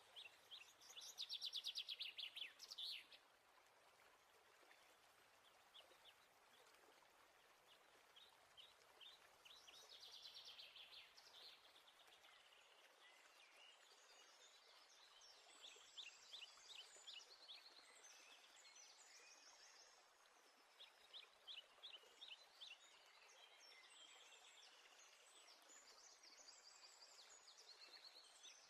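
Faint birdsong of quick high chirps and trills over a quiet hiss, with the loudest trill about two seconds in and denser chirping in the second half.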